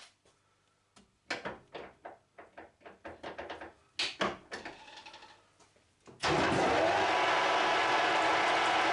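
A few scattered clicks and knocks as the four-jaw chuck on a metal lathe is handled. About six seconds in, the lathe is switched on and its motor and gear train run steadily.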